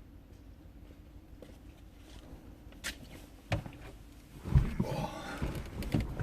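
Handling scrap metal: a faint click and a knock, then a louder run of knocks and scraping for the last couple of seconds.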